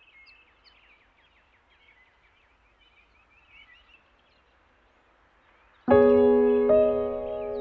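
Faint birds chirping, then piano-like keyboard music starts suddenly about six seconds in, much louder, with sustained chords struck twice.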